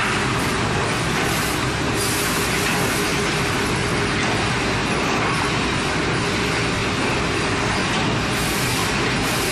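Steady mechanical running noise of woodworking machinery, an even rushing noise with a constant hum underneath and no distinct cuts or impacts.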